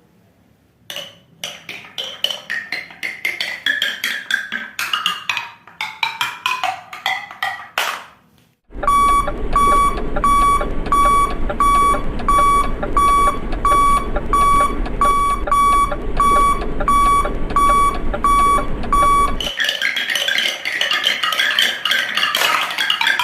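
Marbles clicking and bouncing down a plastic marble run track, the clicks stepping down in pitch. Then a battery-powered toy dump truck's motor hums with a steady beep about twice a second for some ten seconds. Near the end comes a dense clattering rush of marbles.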